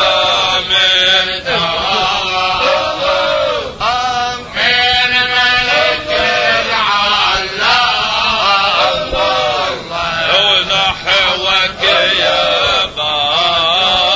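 Men chanting a tahlila, an Arabic devotional praise chant, in long sustained notes that waver and glide in pitch, with brief breaks for breath.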